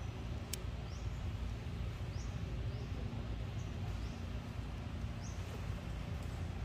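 Steady low outdoor rumble with a faint hum. Faint, short, rising chirps come through it about once a second, and there is a single sharp click about half a second in.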